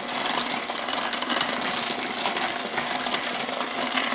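Electric hand mixer running steadily, its beaters working chocolate chips into thick cupcake batter in a glass mixing bowl.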